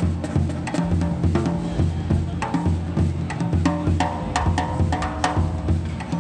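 A small jazz drum kit (18-inch bass drum, 12- and 14-inch toms, 5x14 aluminum snare) played with sticks. A steady pulse of low drum notes about twice a second runs under sharp stick strokes on the drums and cymbal.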